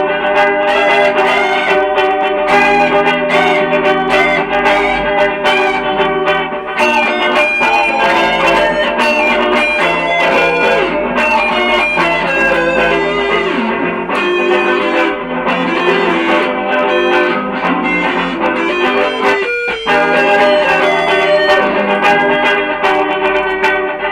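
SG electric guitar played over layered looper-pedal loops, several sustained guitar parts sounding at once, with a brief break about three-quarters of the way through.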